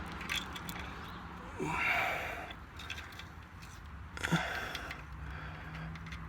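Faint handling noises under a car over a steady low hum: a short breathy rustle about two seconds in and a sharp click a little past four seconds, as a zip tie is fitted to the oil drain valve.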